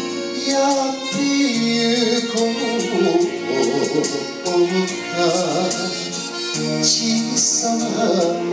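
A man singing a Japanese popular song into a handheld microphone, holding notes with vibrato, over instrumental accompaniment with a steady beat.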